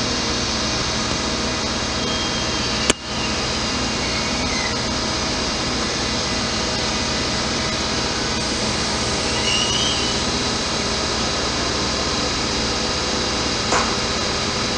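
Electric locomotive standing at the platform with its cooling blowers running, a steady hum and whoosh. There is one sharp click about three seconds in.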